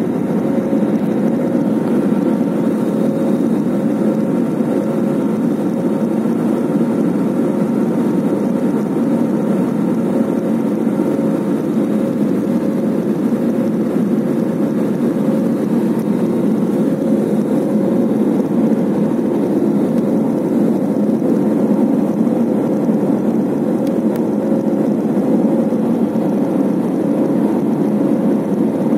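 Steady cabin noise of a twin-engine jet airliner in flight, heard from a window seat beside the wing-mounted turbofan: an even rumble of engine and airflow with a steady hum running through it.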